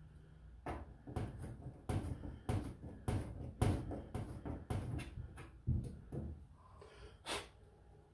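A hand tool working at drilled holes in a sheet-steel cabinet panel: an irregular run of sharp metal clicks, scrapes and knocks against the panel, thinning out after about six seconds, with one last sharp click near the end.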